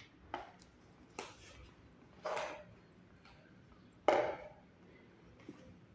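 Flour bag rustling and crinkling as flour is tipped into a small plastic measuring cup: a handful of short rustles, the sharpest about four seconds in.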